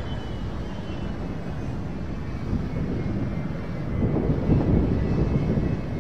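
Bombardier Challenger business jet's twin rear-mounted turbofans running as it taxis onto the runway: a steady low rumble with a faint whine drifting slowly lower in pitch. It grows louder about four seconds in.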